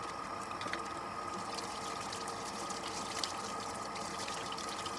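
Kitchen tap running steadily into a stainless steel sink, with hands being rubbed and rinsed under the stream.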